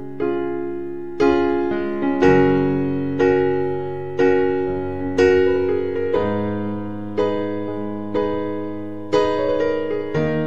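Background piano music: slow chords struck about once a second, each fading away before the next.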